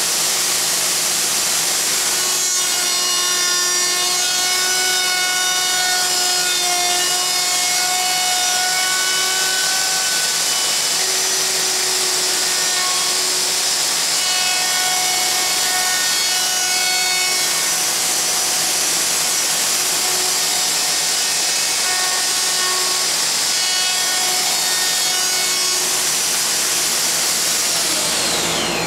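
Festool OF2200 plunge router cutting a wide groove in wood, its high whine shifting as the load changes, over the steady rush of a dust collector and extraction vacuum. Near the end the router is switched off and its whine falls away as it spins down, leaving the rush of the dust extraction.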